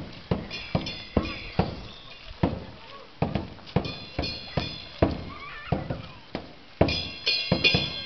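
Chinese dragon-dance percussion: a drum struck at an uneven beat of about two strikes a second, with cymbals clashing and ringing in three clusters.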